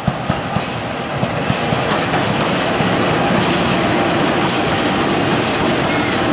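Pair of diesel locomotives, a CC 206 and a CC 201, passing close by with engines running. The wheels click sharply several times in the first second and a half, then a steady loud rumble takes over.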